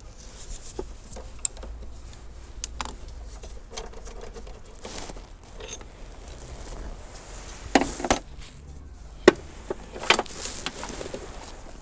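Scattered clicks, clinks and knocks of hand tools working a car battery loose: a ratchet and screwdriver against the metal hold-down and the plastic battery case. The loudest knocks come in the second half.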